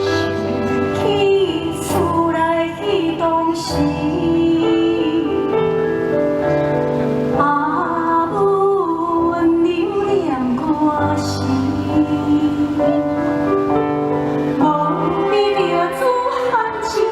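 A woman singing long, gliding held notes over instrumental accompaniment.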